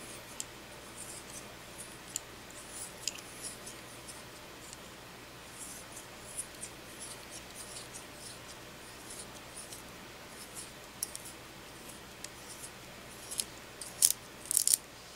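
A woodless graphite pencil being sharpened in a small metal hand sharpener. The blade shaves the graphite in soft, irregular scraping strokes, and the strokes grow louder near the end.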